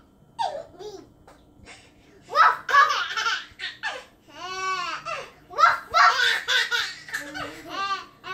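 A baby laughing hard in several bursts, with a young child's voice between them. Just before the middle there is one drawn-out voice sound that rises and falls in pitch.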